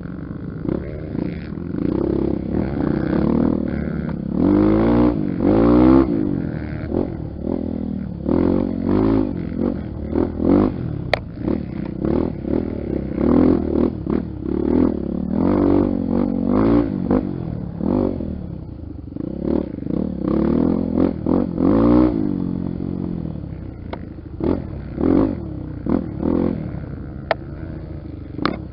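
Honda XR Tornado's single-cylinder four-stroke engine revving up and down over and over as the throttle is opened and closed on an off-road trail, with occasional rattling.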